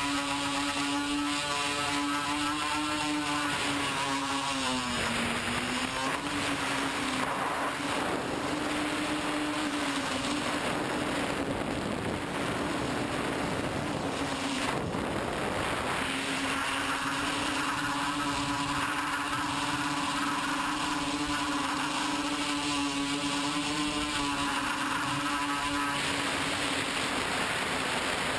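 A TBS Discovery quadcopter's motors and propellers whining steadily in flight, heard from its onboard camera over a steady rush of wind noise. The pitch dips about five seconds in, runs lower and thinner through the middle as the throttle eases, and comes back up strong for the last part.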